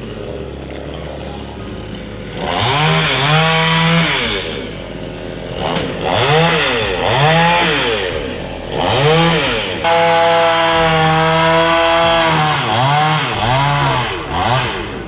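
Petrol chainsaw idling, then revved up and down in a series of throttle bursts, with one held at high revs for about two seconds past the middle before it drops back and blips a few more times.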